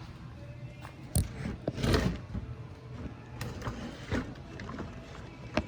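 A 1990 Chevy Silverado's door trim panel being pried loose, its retaining pins popping out of the door: scattered clicks and knocks, the sharpest about a second in and near the end, with a louder scraping rustle around two seconds in.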